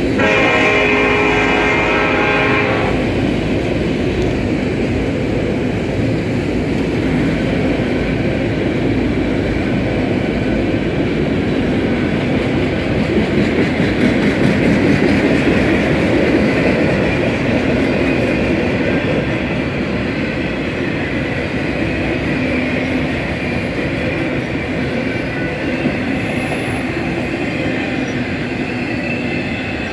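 Freight train's railcars rolling steadily past at close range, a continuous rumble and rattle of wheels on rail. The locomotive's horn sounds over it at the start and stops about three seconds in.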